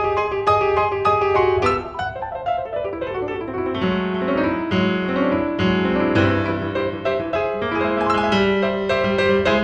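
Piano music, notes struck in quick succession.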